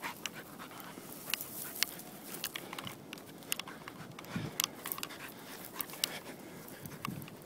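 A dog panting, with frequent sharp crunches of footsteps through dry grass and stony ground.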